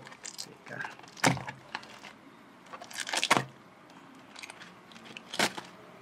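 Brown paper and packing tape being slit and torn open with a knife blade: a few short, sharp scraping and ripping strokes, about three, with the paper rustling between them.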